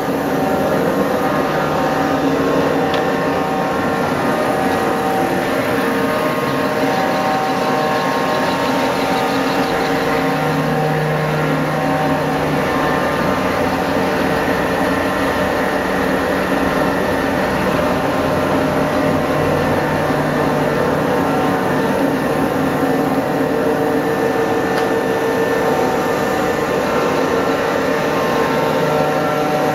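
A restored railway locomotive running while it stands still: a steady, loud mechanical drone with several held tones over a hissing noise, unbroken throughout.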